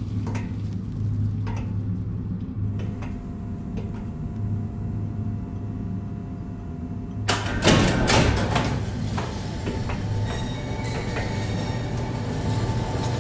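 Film soundtrack music over a steady low hum, broken about seven seconds in by a sudden loud burst of noise with several sharp strokes, after which the sound stays fuller.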